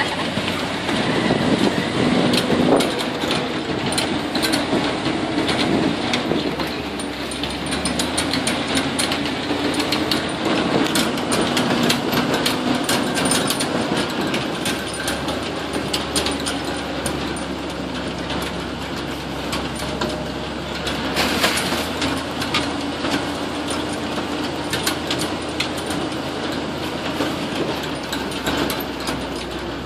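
Swamp buggy engine running steadily as the open vehicle drives along a dirt trail, with frequent rattles and knocks from the buggy bouncing over the ground.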